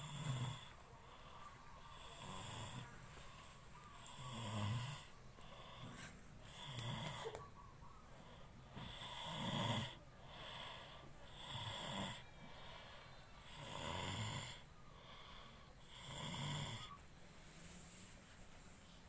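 A person snoring in a slow, even rhythm, with about eight rasping snores each two to two and a half seconds apart.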